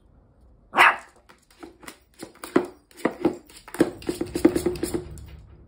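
A small dog rummaging in a bucket of toys: a loud knock about a second in, then a run of short knocks and clatters as the toys and a wire wand toy rattle against the bucket. Toward the end the knocks come quickly and ring with a hollow note.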